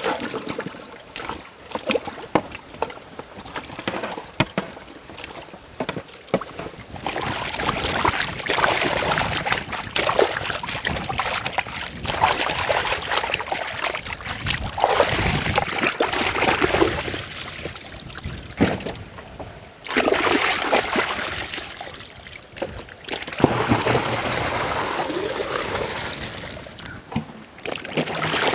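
Water sloshing and splashing as whole raw chickens are washed by hand in a large aluminium pot, in long bursts that swell and fade. Sharper clicks and knocks come through in the first few seconds.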